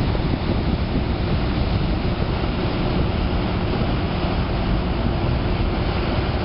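Steady low rumble of a harbour tugboat's engines working, with water churned by its propeller wash and wind buffeting the microphone.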